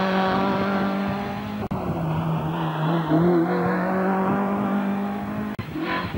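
Hillclimb race car's engine running hard at high, nearly steady revs as it drives past close by. The sound breaks off abruptly twice where the footage is cut, with the pitch a little lower after the first break.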